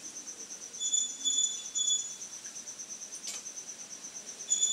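High-pitched insect chirring, cricket-like, pulsing rapidly and steadily throughout. About a second in, a louder high call sounds in three short notes, and a single sharp click comes a little past the middle.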